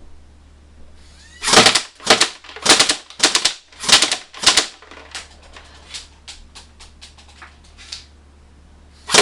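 Battery-powered airsoft gun on a remote-control turret, set to full auto, firing short rattling bursts about twice a second. Lighter ticking comes in the middle, and the bursts start again near the end.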